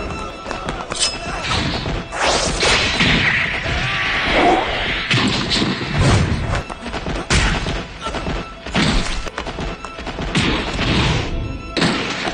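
Anime battle sound effects of a giant wolf attacking men: a run of heavy hits, crashes and thuds, over background music.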